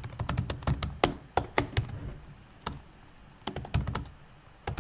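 Typing on a computer keyboard: a fast run of key clicks over the first couple of seconds, a single keystroke about halfway, and another short run near the end.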